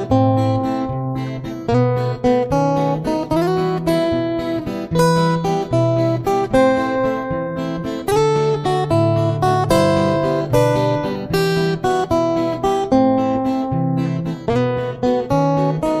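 Background music: an acoustic guitar playing a steady run of plucked notes over bass notes, with a few sliding notes.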